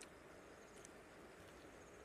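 Near silence: faint outdoor background hiss, with a faint short tick a little under a second in.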